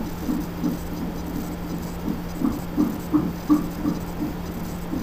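Fetal heartbeat picked up by a Doppler fetal heart monitor: fast, even whooshing pulses a bit under three a second, strongest through the middle, over a steady low hum from the monitor.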